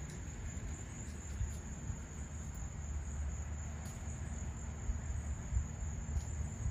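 Insects, crickets or the like, trilling steadily at one high pitch, over a low rumble.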